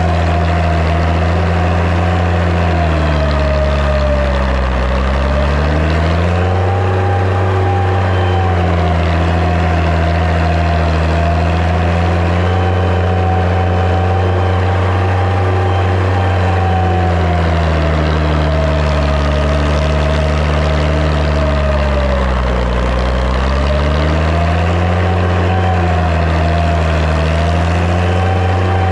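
Massey Ferguson 95X tractor's six-cylinder diesel engine running steadily under load while pulling a five-shank subsoiler. The engine note dips and comes back up twice, about four seconds in and again about twenty-two seconds in, as the engine is pulled down and recovers.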